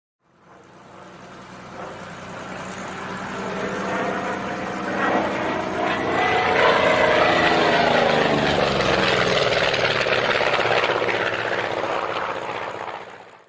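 World War II-era propeller warplane flying past with its piston engine running. It grows steadily louder, is loudest about six to eight seconds in, and its engine note drops in pitch as it passes, then the sound ends abruptly.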